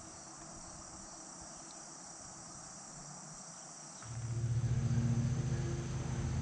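A steady chorus of crickets and other insects, high and even. About four seconds in a low, steady motor hum comes in and becomes the loudest sound.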